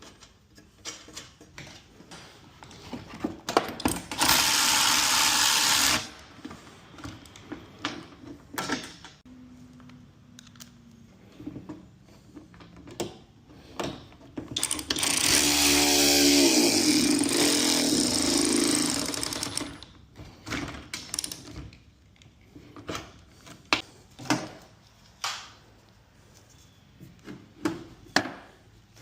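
Handheld power tool driving fasteners: one run of about two seconds, then a longer run of about five seconds, with clicks and knocks of hardware being handled between them.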